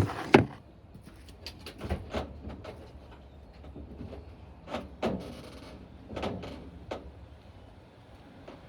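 Irregular knocks, clunks and scrapes of sheet-metal dryer panels and parts being handled during disassembly, loudest in a pair of clanks right at the start, with a low hum underneath.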